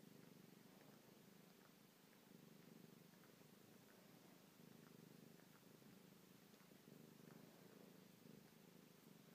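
Domestic cat purring softly and steadily, the purr swelling and easing about every two seconds.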